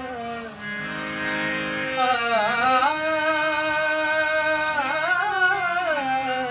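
Antique Bina hand-pumped reed harmonium playing sustained reedy notes and chords, with a man's voice singing along, its pitch bending and wavering over the held reed tones.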